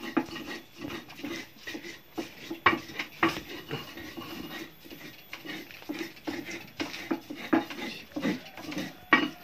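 Irregular scraping and knocking of cookware and a stone mortar as ground spice paste for ayam lodho is handled, with a few sharper clicks.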